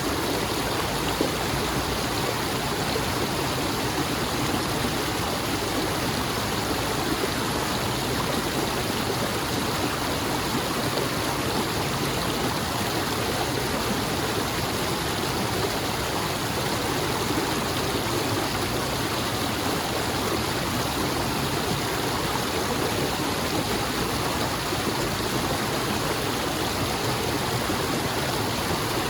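Flowing water, a steady, unbroken rush with no pauses or changes.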